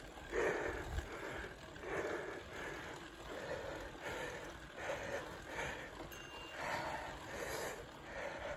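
A mountain biker's heavy, rhythmic breathing while pedalling, about one breath a second, over a low rumble from the bike on the dirt trail.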